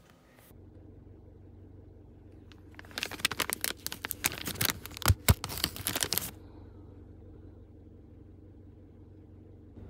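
Crinkling and crackling, like packaging being handled, for about three seconds with two sharper knocks near the middle, over a steady low hum.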